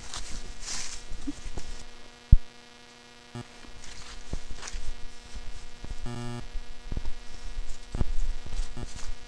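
A steady electrical hum with many even overtones, over scattered knocks and bumps. One sharp thump comes a little over two seconds in, and a short buzz about six seconds in.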